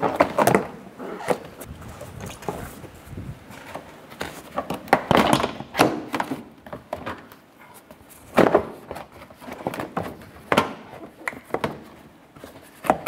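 Stiff plastic engine splash shield being handled and pushed up into place under a car, knocking and scraping against the body. The knocks come in irregular clusters: near the start, about five seconds in, and again around eight and ten seconds in.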